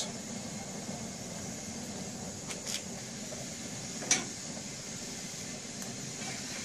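Steady rushing of the Boilex Ultraclean 1 forced-air biomass cookstove, its fan blowing on a wood fire at full power. A few light clicks come through, the sharpest about four seconds in, as a hand works a tool at the top of the stove.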